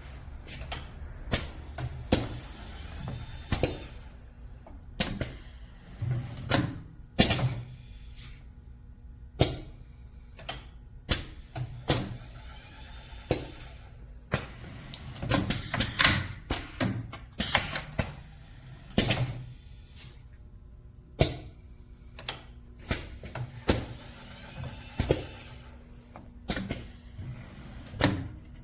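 Automatic wire solder-tinning machine cycling: repeated sharp mechanical clacks and knocks, about one every second or two, over a low steady hum.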